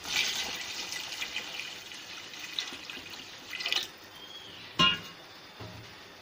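Water poured in a stream into a large pot of fried chickpeas and masala, splashing and gurgling. It starts suddenly, is strongest for the first couple of seconds and tapers off by about four seconds in. A single sharp knock follows about five seconds in.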